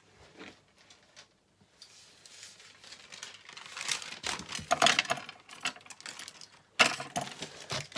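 Craft materials handled on a cutting mat: paper rustling with light clicks and knocks, starting about two seconds in and loudest near the end.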